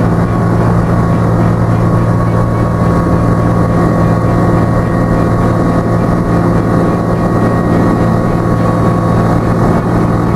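Savannah ultralight aircraft's engine and propeller running steadily at takeoff power, heard from inside the cockpit, with wind noise over the airframe.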